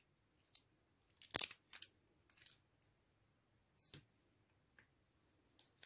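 Scattered faint crinkles and light clicks of clear plastic tape carrying small metal bezel frames, handled and pressed down onto a silicone tray. The loudest crackle comes about a second and a half in.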